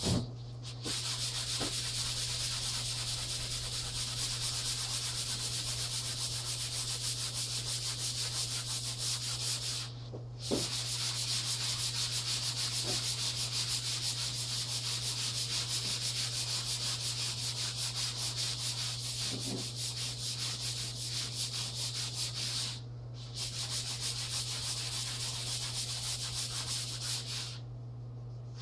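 A hand-held tool rubbed steadily over a wall surface in continuous strokes, breaking off briefly about ten seconds in, again later on and near the end. A steady low hum runs underneath.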